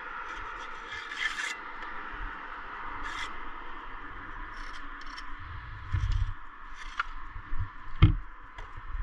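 Steel bricklaying trowel scraping mortar on brickwork in several short strokes, with one sharp knock about eight seconds in.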